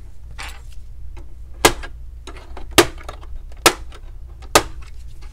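Four sharp clicks, about a second apart, as a metal pry tool works along the edge of an HP 24 all-in-one's touch screen to pry it loose from its frame.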